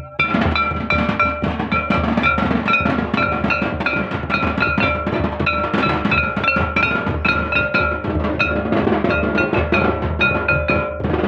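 Santali folk dance music played live: a large double-headed barrel drum is beaten in a fast, steady rhythm, with a ringing, bell-like tone pulsing along with the beats.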